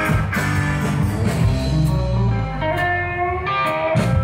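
Live rock band playing: electric guitars, bass and drums, with a long, bending guitar note in the second half.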